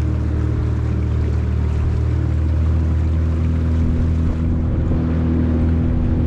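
Boat motor running steadily at a constant speed while underway, with a deep even drone.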